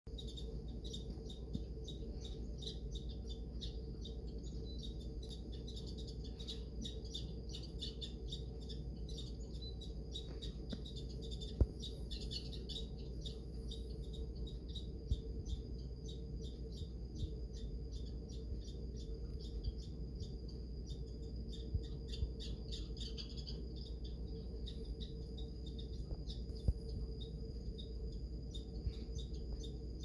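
A squirrel chattering in a rapid, continuous stream of short, sharp notes, scolding another squirrel that has found its feeding spot. A steady low hum runs underneath.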